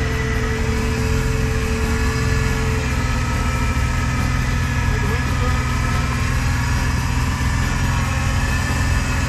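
Jeep Wrangler engine idling steadily while its winch slowly pulls it forward through mud, with a faint whine above the engine note.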